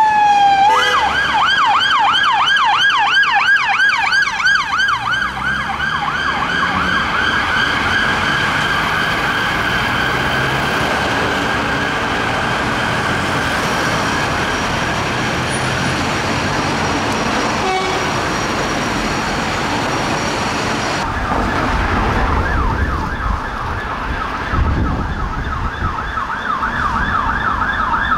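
Unmarked police car sirens. A slow wail slides down in pitch and switches about a second in to a fast yelp, which fades into traffic noise as the car moves away. About three-quarters of the way through, another police car's yelp siren starts and grows louder as it approaches.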